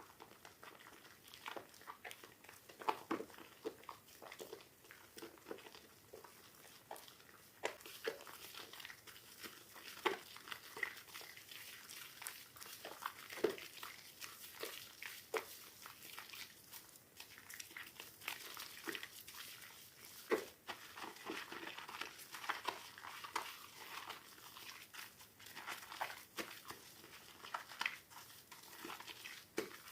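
Soaked bar soap being squeezed and crushed by hand, with irregular wet crackling, squishing and crunching.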